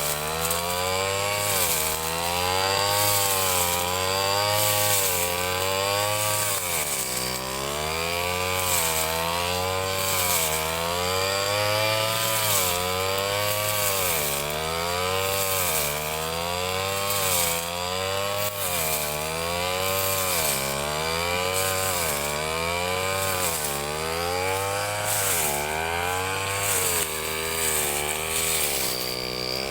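Ryu 30.5 cc two-stroke grass cutter engine running under load, its revs rising and falling every second or two as it cuts grass.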